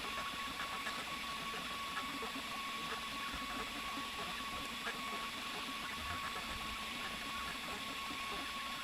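A 3018 mini CNC laser engraver running through an engraving job: a steady machine hum with a constant high-pitched whine.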